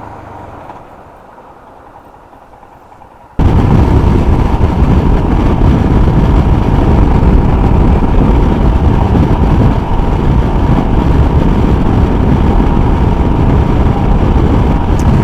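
Motorcycle riding noise: steady engine and wind rush on the rider's microphone, starting abruptly about three seconds in after a quieter stretch and then running loud and even.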